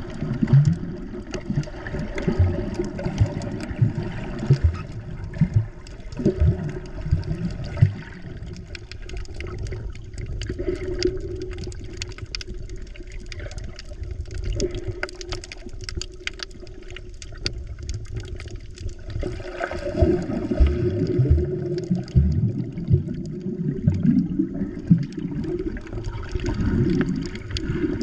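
Muffled underwater sound picked up by a GoPro held just below the sea surface: low sloshing and gurgling water with irregular knocks and bubble pops. These are busier in the first eight seconds and again from about twenty seconds in.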